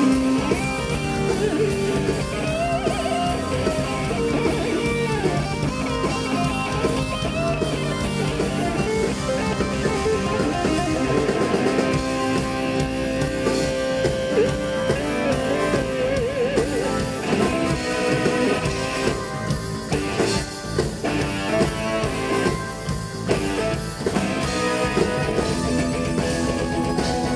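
Live rock band playing an electric guitar solo, the lead guitar bending and holding notes with vibrato over bass and drums. A few short breaks in the band come about two-thirds of the way through.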